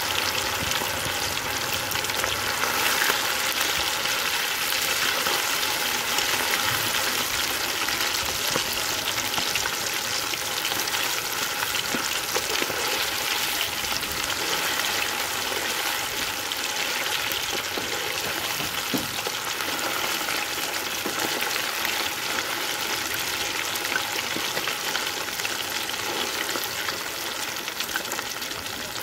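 Masala-marinated quail deep-frying in hot oil in an aluminium kadai: a steady, dense sizzle of bubbling oil with scattered crackles.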